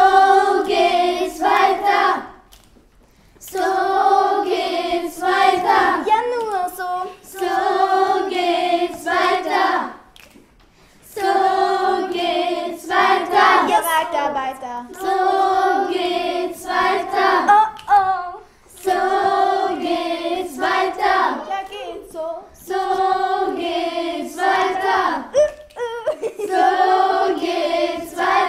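A group of children singing together, phrase after phrase of held notes with brief pauses between them.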